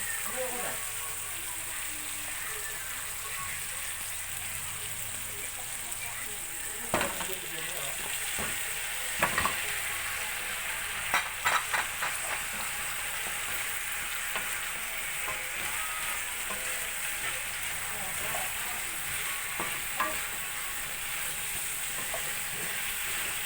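Pork spareribs sizzling as they fry in a pan for caldereta, with a steady hiss, while they are stirred. A few sharp knocks of the utensil against the pan come now and then, several of them close together around the middle.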